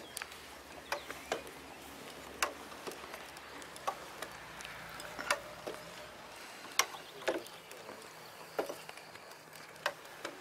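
Steel pole climbers clacking against a wooden utility pole as a lineman steps up it. Short sharp clicks, mostly in pairs about half a second apart, come about every second and a half.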